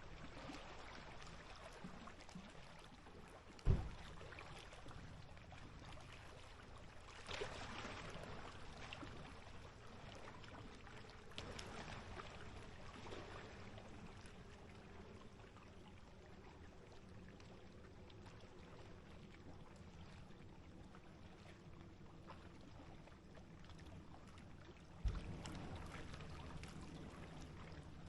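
Small waves lapping and popping against the lake edge, with a few splashing washes and two sharp low thumps, one about four seconds in and one near the end.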